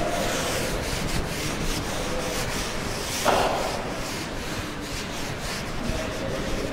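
A felt duster rubbing across a chalk blackboard as chalk writing is wiped off, in repeated scratchy strokes. There is one brief louder stroke a little over three seconds in.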